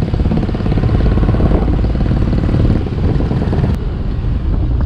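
Motorcycle engine running steadily while riding, with road and wind noise; it gets a little quieter near the end.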